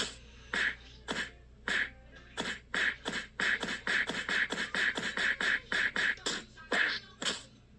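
Punching sound effects: a string of short, sharp hits, spaced out at first, then a fast flurry from about two to six and a half seconds in, then a few single hits.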